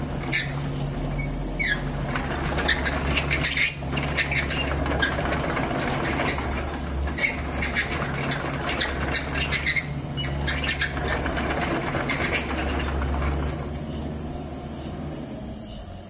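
Kubota 163-5 mini excavator's diesel engine running steadily while the boom and arm work, with repeated short high squeaks, some sliding in pitch, from the moving arm. The engine and squeaks quieten near the end.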